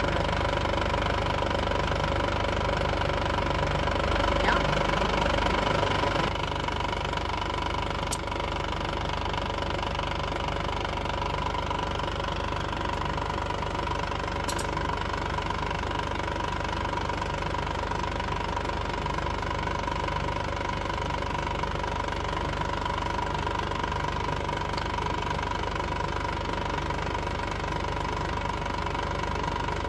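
An engine idling steadily, slightly louder for the first six seconds, with two faint clicks.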